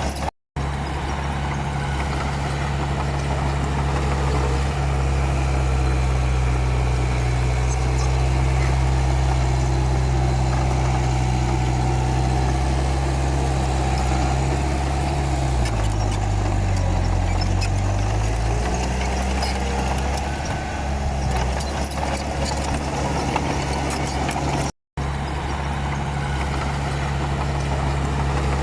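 Komatsu D31P crawler bulldozer's diesel engine running steadily. Its pitch drops for a few seconds past the middle, then rises back. The sound cuts out for a split second twice, once at the start and once near the end.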